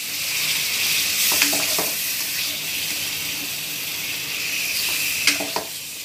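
Raw chicken pieces sizzling as they fry in hot oil in a metal kadhai, with a steady hiss, while a spatula stirs them and knocks against the pan a few times.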